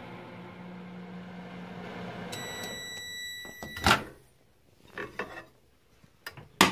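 Frigidaire microwave oven running with a steady hum that stops a little over two seconds in, as its end-of-cycle beeps sound. A loud clunk follows as the door is pulled open, then a few light knocks and sharp clicks of a plate being handled near the end.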